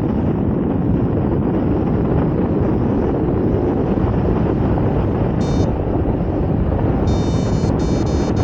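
Wind rushing over the microphone of a paraglider in flight, a steady heavy buffeting. It is broken near the end by a few short high electronic beeps.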